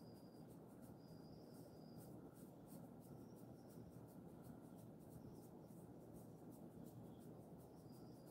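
Near silence: faint soft rubbing of hands massaging a dog's fur, over a low steady hiss, with faint high-pitched cricket chirping that comes and goes.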